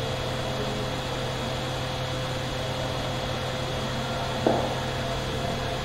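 Steady low electrical hum and hiss of room background noise, with thin steady whining tones; one brief short sound about four and a half seconds in.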